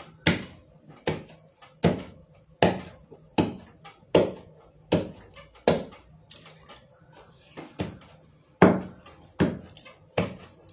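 A wooden pestle pounding fufu in a wooden mortar by one person: a steady series of heavy thuds, about one every 0.8 seconds, each with a short dull ring after it, and one slightly longer pause past the middle.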